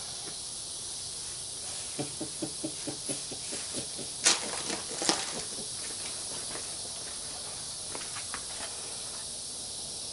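A steady high hiss of outdoor background noise. About two seconds in comes a quick run of soft, evenly spaced knocks, followed by two sharp clicks about a second apart.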